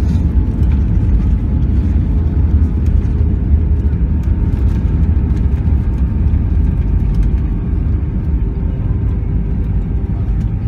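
Airbus A320 cabin noise: a steady low rumble from the airframe and engines with a faint steady whine above it.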